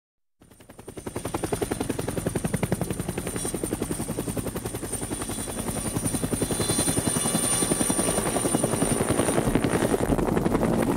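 Helicopter rotor sound effect, a rapid steady chopping that fades in from silence about half a second in and then holds, with a thin high whine over it.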